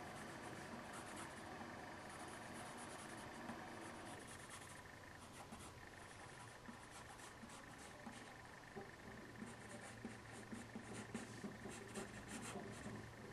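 Graphite pencil sketching on paper: quiet, scratchy strokes of the lead. In the last few seconds the strokes come quicker and sharper.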